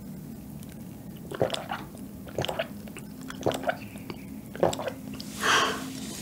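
Gulping an iced drink from a glass mug: four swallows about a second apart, then a short breathy exhale near the end.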